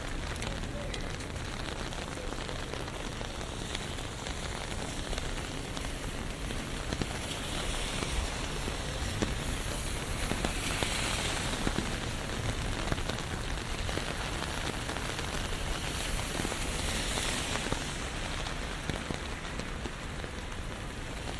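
Steady rain falling on an umbrella and a city street, a constant hiss that swells twice, around the middle and again about three-quarters through.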